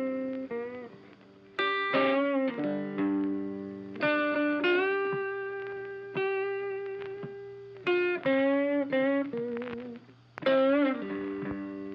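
Background instrumental music: picked notes and chords, each struck sharply and left to ring out and fade, with brief pauses about a second in and again near the end.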